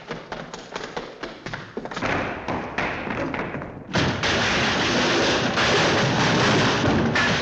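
Cartoon sound effect: a quick run of sharp taps and thuds, about five a second, growing denser. About four seconds in, a loud, steady noise suddenly takes over.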